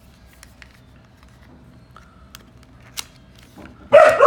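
Faint clicks and rustling of a small product box being handled and opened, with a sharper click about three seconds in. Near the end a dog barks loudly.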